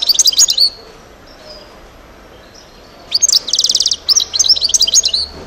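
European goldfinch singing: a short burst of fast, high twittering at the start, then a longer phrase about three seconds in with a rapid buzzy trill in its middle.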